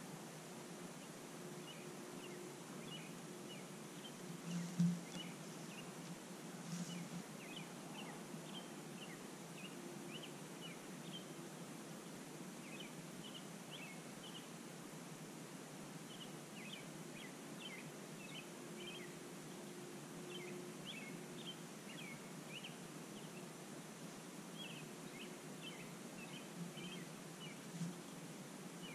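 Faint, scattered short chirps of night-calling animals over a steady low hum, with a few soft bumps, the loudest about five seconds in.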